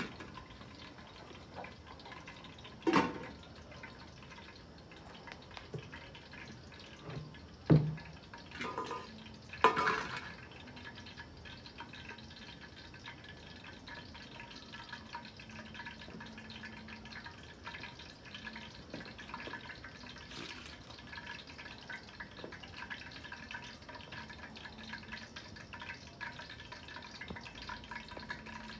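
Metal plates and pot lids clattering and clinking a few times in the first ten seconds as they are handled, over a steady faint hiss.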